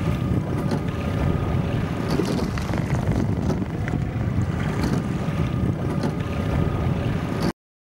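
Wind buffeting the microphone over water noise from a rowing boat out on the sea, a steady rumbling that cuts off suddenly near the end.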